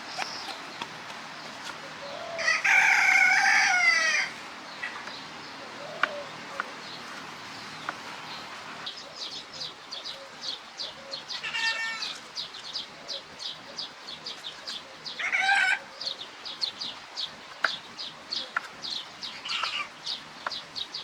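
A rooster crowing once, loud and long, followed by shorter chicken calls a few times later. From about the middle onward there is a fast, regular run of short high chirps.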